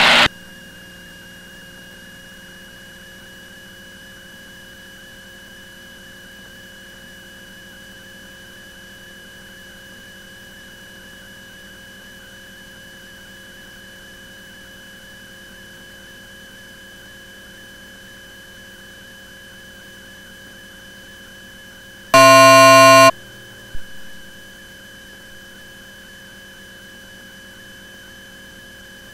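Steady electrical hum with faint high whining tones on the aircraft's intercom audio feed. About 22 seconds in, a loud buzzing tone lasts just under a second, followed by a small click.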